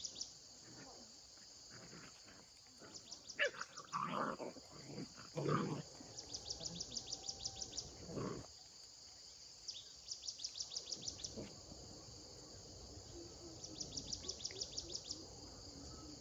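An insect chirps in repeated high-pitched pulsing bursts, each lasting about a second and a half and coming every few seconds. A few louder, short sounds come about three to six seconds in and again near eight seconds.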